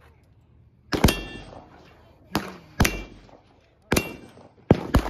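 About six rifle shots, sharp reports with a short echoing tail, some following closely on one another. A brief metallic ring follows two of them.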